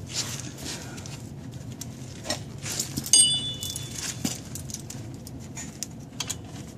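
Metal hand tools clinking and tapping against the car's front suspension parts. About three seconds in there is one sharp clang that rings briefly.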